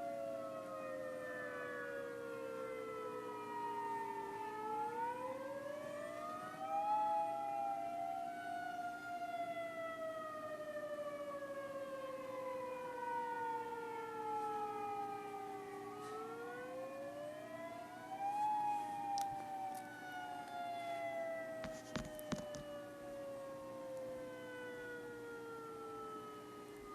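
Outdoor tornado warning sirens sounding a test wail. Two sirens slightly out of step each rise in pitch over about two to three seconds, then fall slowly over about eight seconds, and this happens twice.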